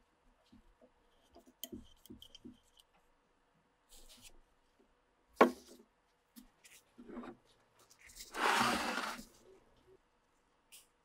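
Small handling noises from the restored axe and its paracord-wrapped handle in gloved hands: scattered light clicks and scrapes, a single sharp knock about five seconds in, and a louder rustle lasting about a second near nine seconds.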